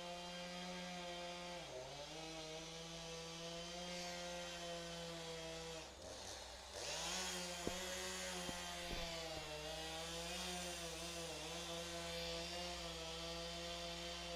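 Chainsaw running at high revs. Its pitch drops sharply and picks back up twice, and from about halfway on it sounds harsher and hissier.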